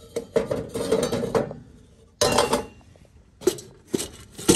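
Tin coffee cans being handled, clanking and scraping against a metal shelf and a wire crate: a run of clatter over the first second and a half, then a few separate knocks near the end.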